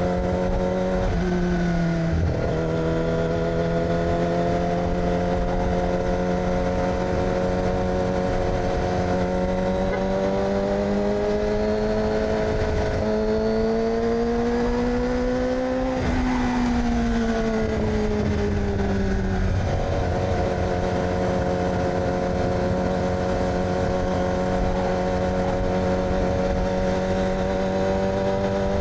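2006 Yamaha R6 inline-four engine through an aftermarket AR exhaust, running under way at mostly steady revs. The pitch dips and picks back up about a second in, rises gently past the middle, falls off, then holds steady again for the rest.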